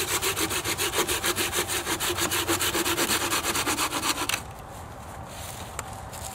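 Hand saw cutting through a wooden branch in rapid, even back-and-forth strokes, several a second, which stop about four seconds in as the cut goes through.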